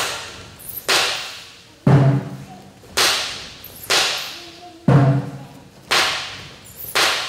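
Drum beaten in a steady cadence, about one stroke a second, every third stroke deeper and fuller, each ringing on in the hall, keeping time for a Vovinam spear form.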